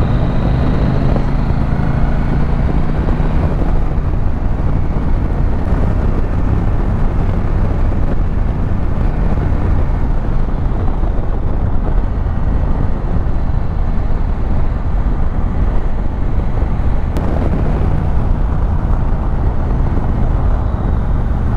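Husqvarna Norden 901's parallel-twin engine running steadily under way, mixed with heavy wind rush on the microphone.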